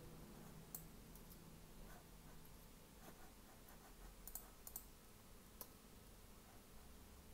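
Near silence with faint, scattered clicks of a computer mouse and keyboard, a quick cluster of about four clicks between four and five seconds in.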